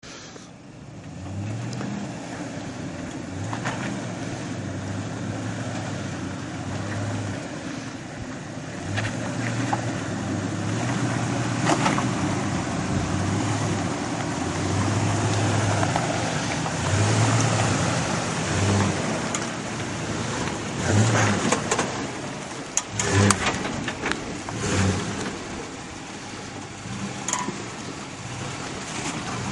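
2006 Dodge Ram Power Wagon's Hemi V8 working at crawling speed over rock, the revs swelling and easing off every second or two. There are a few sharp knocks, clustered in the second half.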